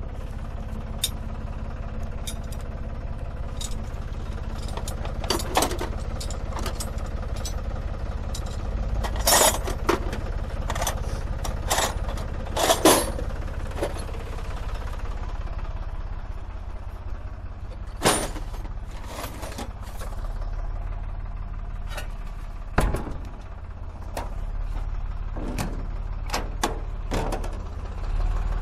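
Small tractor engine idling steadily, with scattered sharp knocks and clicks over it, the loudest about nine and thirteen seconds in.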